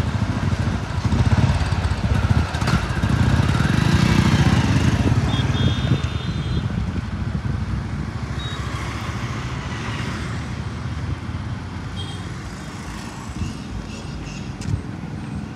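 Motorcycle running as it rides along a street, with a low rumble that is louder in the first half. A short high beep sounds about five seconds in.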